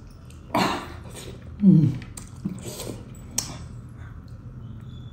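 Close-up wet eating sounds of a man biting meat off a mutton leg bone and chewing, in several short noisy bursts. About a second and a half in comes a short, low, falling grunt from the throat, the loudest sound.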